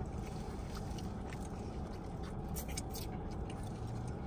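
Someone chewing food, with faint small clicks over a steady low background hum.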